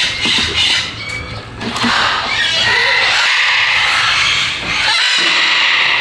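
A flock of parrots screeching and squawking together, rising about two seconds in to a loud, continuous din of overlapping calls.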